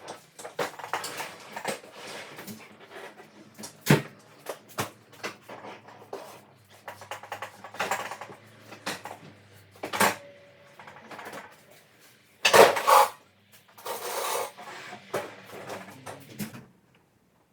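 Irregular clinks, knocks and rustles of household items being handled and set down, with a few sharper knocks and a louder scraping or rustling burst a little past the middle.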